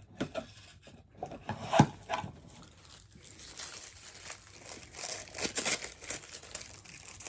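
Packaging being handled and opened: crinkling and rustling with a few sharp taps and knocks, the loudest a little under two seconds in.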